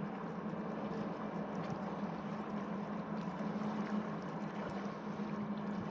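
Boat engine running steadily with an even low hum over a constant hiss.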